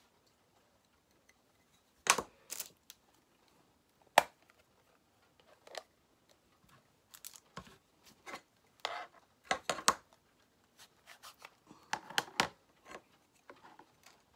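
Irregular clicks, taps and light knocks of scrapbooking supplies (rubber stamps, ink pad, paper) being handled on a work table, with the sharpest knocks about two and four seconds in.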